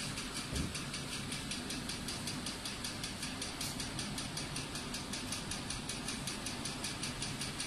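Steady mechanical running noise with a fast, even ticking of about six ticks a second, and a brief low thump about half a second in.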